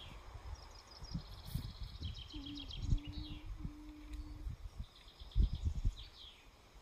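Small birds chirping and trilling in the background, with a few soft knocks and bumps.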